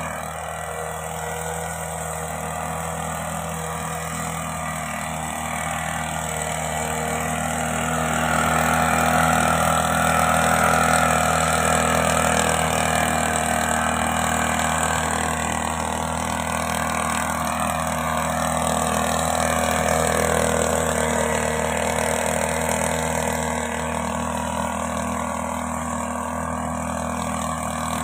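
Backpack motorized mist blower's small two-stroke engine running steadily while blowing granular fertilizer out through its hose. It grows louder for several seconds in the middle, then eases back.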